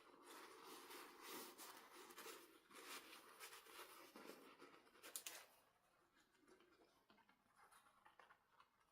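Faint rustling, scraping and small clicks of objects being handled, with a sharper click about five seconds in, then quieter.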